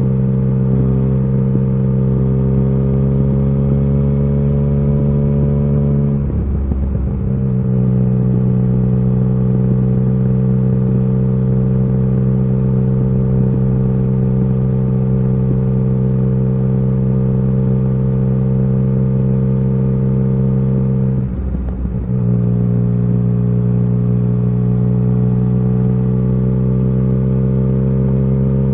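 Yamaha XSR900 inline three-cylinder engine running at a steady cruising pitch while riding, with two short dips in the engine note, about six and twenty-one seconds in.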